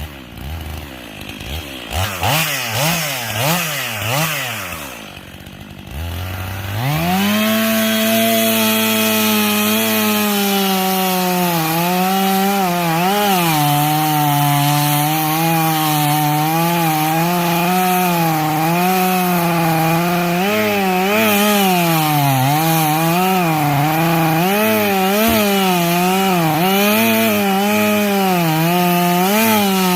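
Chainsaw revved in quick blips for the first few seconds, then held at full throttle from about six seconds in. Its pitch sags and wavers as the chain cuts into wood.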